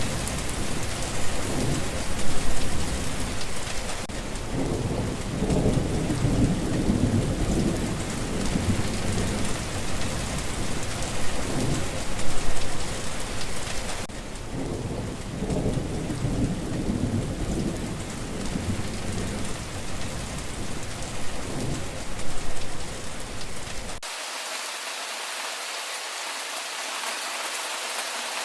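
Thunderstorm: steady heavy rain with rolling thunder rumbling underneath, peaking in three loud rumbles about ten seconds apart. Near the end the thunder cuts off abruptly, leaving only the hiss of rain on a surface.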